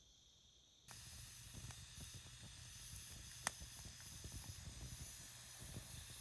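Wood fire burning in a fire pit, hissing with irregular crackling pops and one sharp pop midway. Crickets chirp faintly before the fire sound cuts in about a second in.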